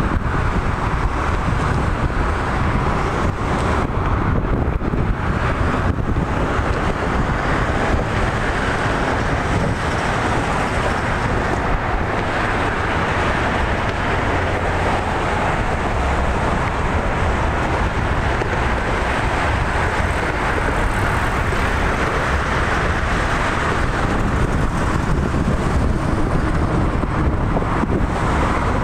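Steady road traffic noise from a multi-lane expressway below, an even wash of tyres and engines with a low rumble and no single passing vehicle standing out.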